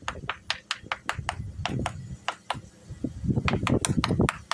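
Knuckles rapping quickly and evenly on a fibreglass boat hull bottom, about four or five sharp taps a second. This is a tap test that sounds out voids, hollow air pockets under the laminate.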